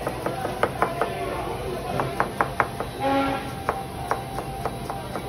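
Knife chopping food on a cutting board in quick, regular strokes, about four to five a second. A short pitched sound comes in briefly about three seconds in.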